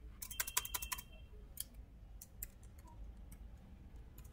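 Typing on a computer keyboard: a quick run of key clicks in the first second, then a few scattered, fainter keystrokes.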